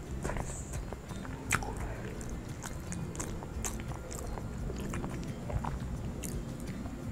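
A person chewing and biting braised chicken with potatoes, wet mouth sounds picked up close by a clip-on microphone, with scattered small clicks.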